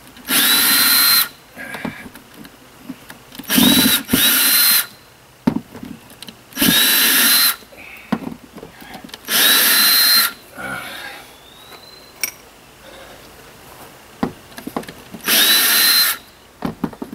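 Ryobi cordless drill driver backing screws out of a camper's window frame in about six short runs, two of them close together, each whining up to a steady pitch as it spins up. Light clicks from the screws and bit fall in the gaps between runs.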